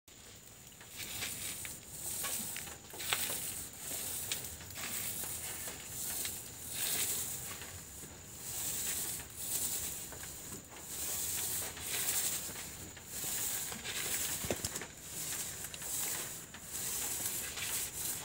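Paint roller on a long pole rolling paint onto a rough concrete wall: a soft hiss that swells and fades with each stroke, about once a second.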